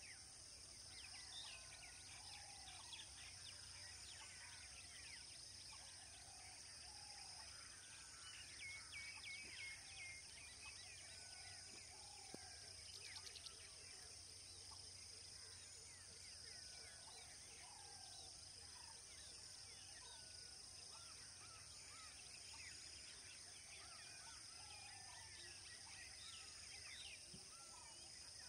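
Faint outdoor natural ambience: many small bird calls and chirps, with a quick trilled call about nine seconds in, over a steady high insect hum. A brief run of rapid clicks comes around thirteen seconds.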